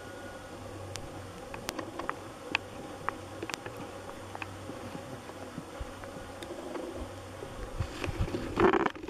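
Flying insects buzzing steadily, with scattered faint clicks. A short burst of rushing noise comes near the end.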